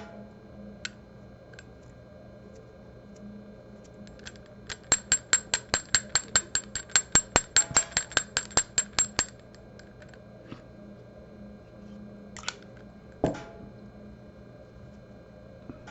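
Fly-tying hair stacker tapped rapidly on the bench, about twenty sharp clicks at roughly five a second, settling a clump of elk hair so its tips come level. A couple of single knocks follow a few seconds later.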